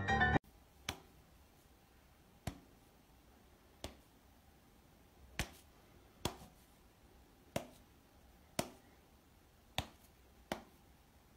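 A person's fingers snapping, about nine sharp snaps spaced unevenly roughly a second apart, while a cat standing on its hind legs swats at the hand.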